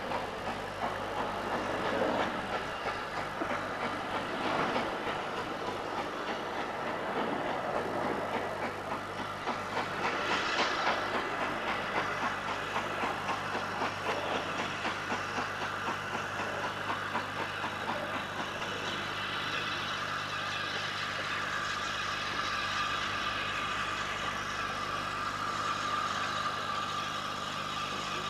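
Steam locomotive running slowly towards the listener, its exhaust beats making a steady rhythm. A high, steady squeal comes in about two-thirds of the way through and holds.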